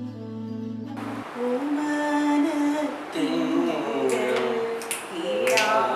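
Instrumental background music with held notes cuts off about a second in. A woman then sings a song, with a sharp click near the end.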